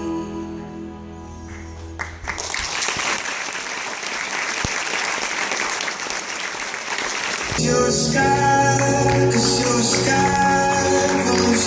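Theatre audience applauding after soft stage music fades out; about two-thirds of the way through, an upbeat music track starts over the applause.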